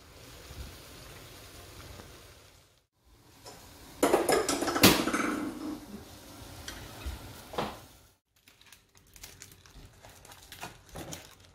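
Low sizzling from the coconut-milk cassava-leaf stew in its pot on a gas burner, then a burst of clattering from utensils against the pot about four seconds in. Near the end, faint crinkling as charred banana-leaf wrapping is peeled apart.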